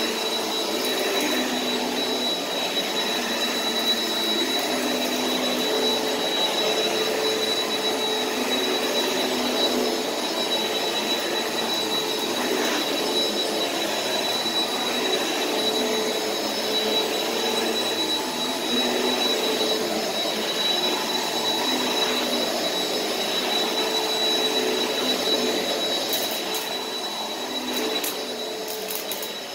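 Bagless upright vacuum cleaner running as it is pushed over carpet: a steady motor hum with a thin, high whine over it. A few faint clicks come near the end.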